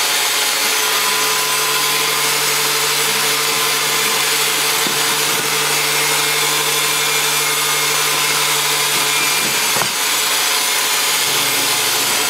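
A power tool or shop machine motor running steadily: an even, loud hiss over a steady low hum, unchanging throughout, with a small knock about ten seconds in.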